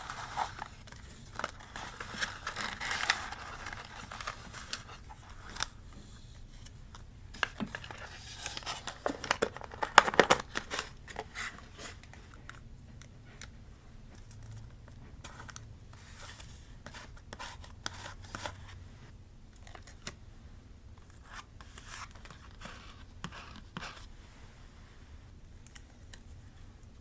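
Paper being handled for scrapbooking: rustling, crinkling, snipping and tearing. A cluster of louder crinkles and sharp clicks comes about ten seconds in, then lighter ticks and rustles follow.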